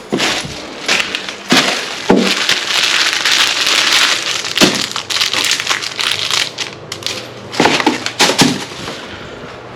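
Handling noise: a series of sharp knocks, with a stretch of loud crackling, crunching noise in the middle and a few more knocks near the end.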